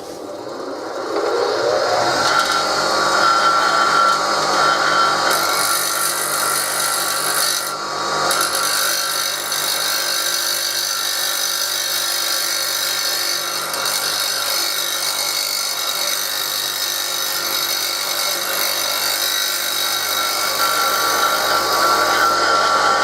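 Bench grinder motor spinning up, then a steel washer held against the grinding wheel to trim its edges: a steady loud grinding.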